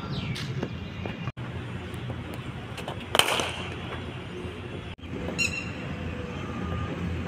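A single sharp crack of a cricket bat striking a leather cricket ball about three seconds in, over steady low outdoor background noise. A brief high chirp follows a couple of seconds later.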